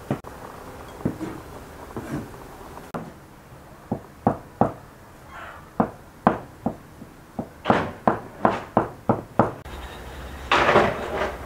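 A knife chopping peeled tomatoes on a wooden cutting board: scattered knocks at first, then a quick run of about four chops a second. Near the end, a spoon stirs and scrapes in a glass bowl.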